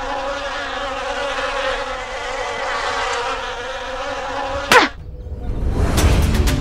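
A housefly buzzing steadily around, cut off by a brief whoosh near the end. Background music with a steady beat starts just after.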